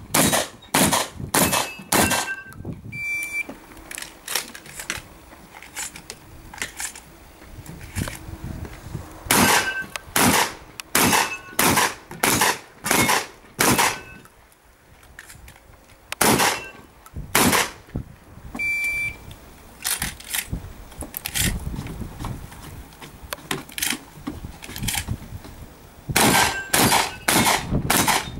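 Shotgun shots fired in quick strings, some less than half a second apart, with short pauses between the strings. A brief high electronic beep, typical of a competition shot timer's start signal, sounds twice: about three seconds in and again near nineteen seconds.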